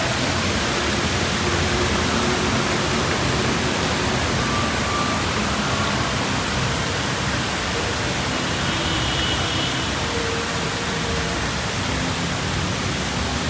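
Steady rushing noise, even and unbroken throughout, with a few faint short tones.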